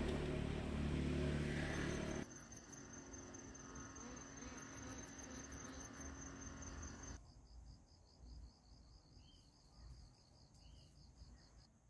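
A low engine-like hum for about the first two seconds, then a sudden cut to insects chirping: a steady high buzz with pulsing trills. A second cut brings a quieter cricket trill of about six pulses a second, with two short chirps near the end.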